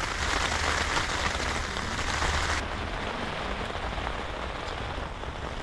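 Heavy rain falling steadily as a dense, even hiss. About halfway through, the brightest, highest part of the hiss drops away suddenly.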